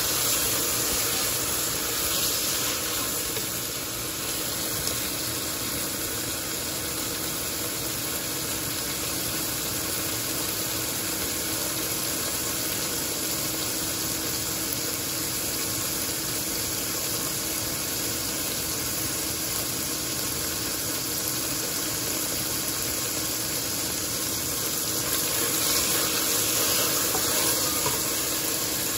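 Sliced onions and green chillies sizzling steadily in hot oil in a pan with freshly added soy sauce. The sizzle is a little louder in the first second and again near the end.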